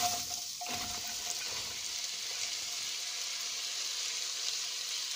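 Chopped onions and spring onions landing in hot butter and sizzling, a steady frying hiss that starts suddenly as they go in.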